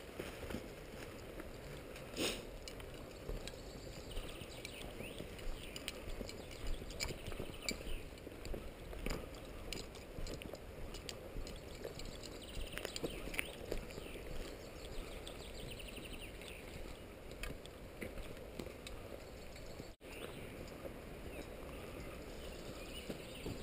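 Footsteps and rustling of people walking through forest undergrowth and then along a gravel track, with irregular small crackles and clicks. Birds sing in the background.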